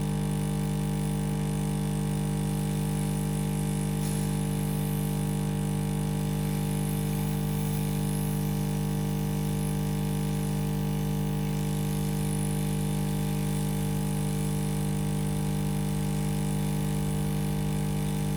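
Hot air rework station blowing steadily: a constant hum with several steady tones, while it heats a MOSFET on a motherboard to desolder it.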